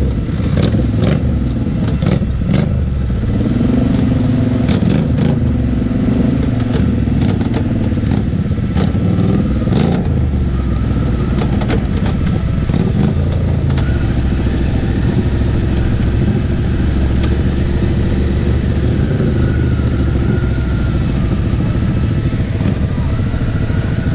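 Can-Am Outlander 400 XT ATV engine running under changing throttle, its pitch rising and falling. Sharp knocks and clatter come through during the first ten seconds or so.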